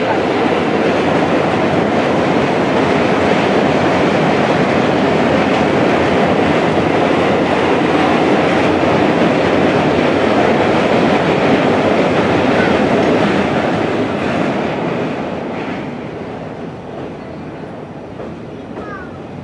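Loud rumble and clatter of a passenger express train running over a steel girder river bridge, easing off about 15 seconds in.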